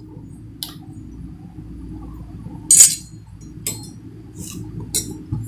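A few light metallic clinks of kitchen utensils, the loudest about three seconds in, over a steady low hum.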